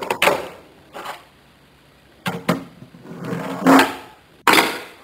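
A fingerboard clattering on a hard wooden surface: a string of separate sharp clacks and short rattles as the small deck and wheels hit down and roll. The loudest clack comes about four and a half seconds in.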